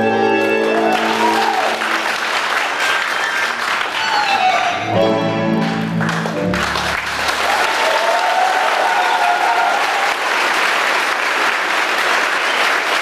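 Tango music ending about a second in as a crowd breaks into loud applause, which carries on; a short phrase of the music sounds again around the middle under the clapping.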